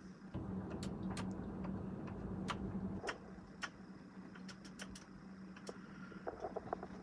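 Faint background with a steady low hum and scattered light clicks and ticks, a few more of them near the end.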